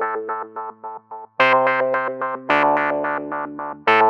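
Outro background music: quick, evenly repeated chords, about five a second, in phrases that start again with a louder chord about a second and a half in and again near the end.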